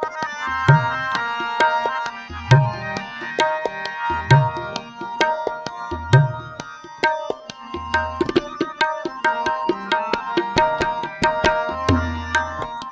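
Instrumental interlude of Sikh kirtan: tabla playing a steady, dense rhythm, with deep bass strokes about every two seconds, under sustained harmonium notes.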